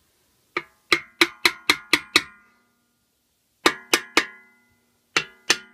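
Gentle hammer taps seating the crankcase cover of a Honda GXV160 engine down over its dowel: three quick runs of sharp taps, about seven, then three, then two, each with a brief metallic ring.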